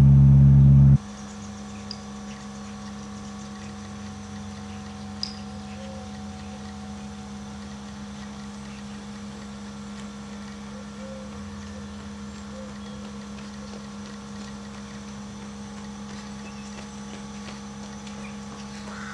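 A steady mechanical hum at a constant pitch. It is loud for about the first second, then drops abruptly to a much quieter, even hum that holds steady.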